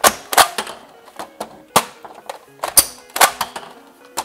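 BuzzBee Torrent toy pump-action foam-dart shotgun being racked, its plastic pump clacking sharply back and forward several times and ejecting a spent foam shell out the side. Background music plays under the clacks.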